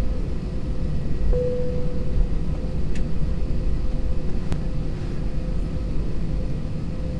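Airbus A320 jet engines running at low power, heard from inside the cabin over the wing as the aircraft taxis: a steady low rumble with a steady hum that briefly swells about a second and a half in.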